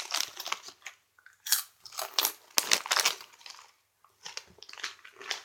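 Cheetos being bitten and chewed: an irregular run of crisp crunches.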